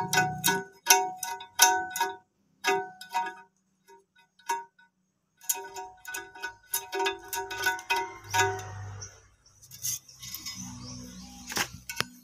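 Repeated light clinks that each ring briefly with a bell-like tone: a toilet tank's metal flush lever arm knocking against the porcelain tank as the handle is fitted. There is a quick run of clinks at first, a few scattered ones, then another run from about five and a half to nine seconds in.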